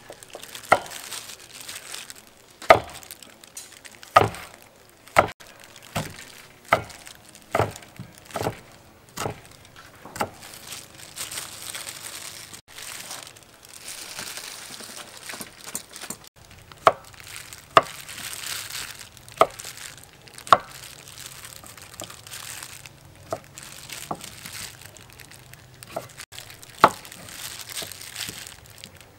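Kitchen knife chopping through red chillies and then cucumber onto a thick wooden chopping block: sharp knocks at an uneven pace of about one a second, with a few seconds' pause in the middle.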